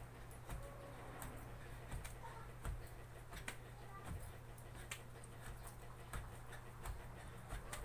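Feet landing on the floor during a jumping exercise: a low thud with a sharp click about every three-quarters of a second, over a steady low hum.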